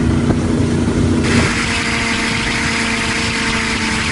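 Motorboat engine running at speed, with water rushing in the wake. About a second in, the sound changes abruptly to a steady engine note at a fixed pitch with more water hiss.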